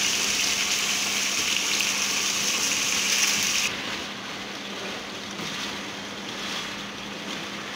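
Chicken curry masala sizzling as it fries in a karahi over a gas flame, stirred with a wooden spatula. The sizzle is a steady hiss that drops sharply to a quieter level a little over halfway through.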